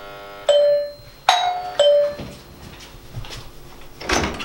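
Two-tone doorbell chime ringing: a low tone about half a second in, then a high-low ding-dong a second later, each tone ringing on and dying away. Near the end, a short clatter as the door handle is worked and the door opened.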